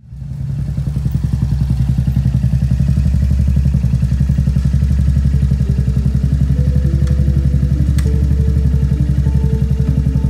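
Motorcycle engine idling with an even, rapid thump. A simple melody of held notes joins about four seconds in.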